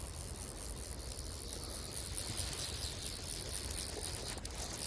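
Insects trilling in a steady, high, evenly pulsing chorus over a low background rumble.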